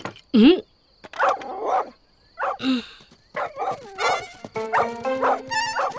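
Cartoon animals yelping and barking, among them a dog, in short separate cries that slide up and down in pitch. Music with held notes comes in about halfway through.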